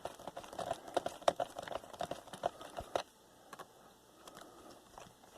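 Light, irregular clicks and taps of a small screwdriver turning screws into a laptop's plastic case. The clicking stops about three seconds in and only faint handling sounds follow.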